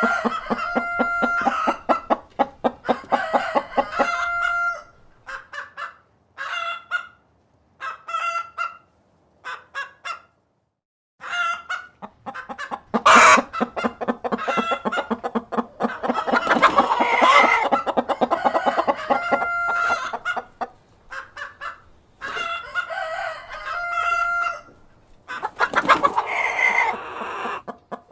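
Domestic hens clucking in quick runs of short notes, with drawn-out calls among them, and a rooster crowing. The sound comes in bursts, broken by two brief silent pauses in the first half.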